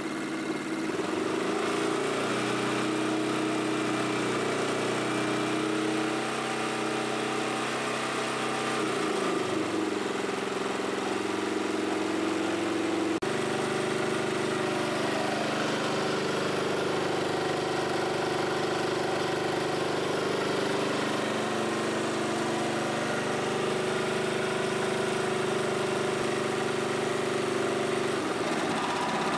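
Gasoline portable generator engine running steadily under an electric heater load. Its pitch sags briefly about ten seconds in and again near the end, then recovers, as the load steps up to 1000 W and then 2000 W.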